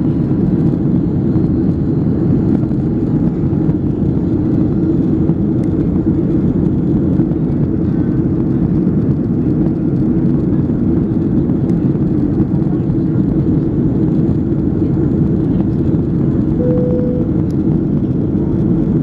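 Airliner cabin noise in flight: the steady low rush of the jet engines and airflow heard from inside the passenger cabin. A short, steady tone sounds briefly near the end.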